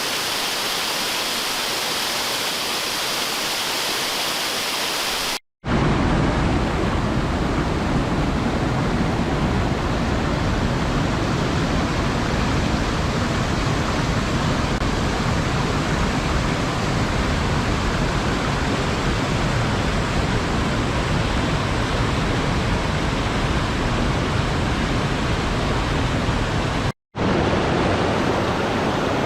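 Waterfall, a steady rush of falling water. It cuts out for an instant about five seconds in, then comes back deeper and heavier; it drops out once more briefly near the end.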